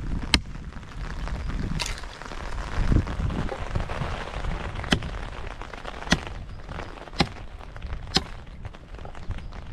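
Hatchet chopping a branch laid across a log: about six sharp knocks of the blade biting into wood, roughly a second apart, over a low rumble.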